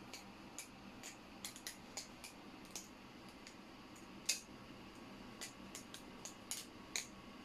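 Ryworx Setsuna balisong being flipped, its handles and blade clicking against each other in quick, irregular light clicks, with one sharper click about four seconds in.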